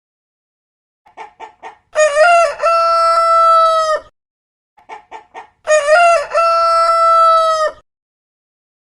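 Rooster crowing twice: each crow opens with four short clipped notes, then holds one long steady note for about two seconds. There is dead silence between the two crows.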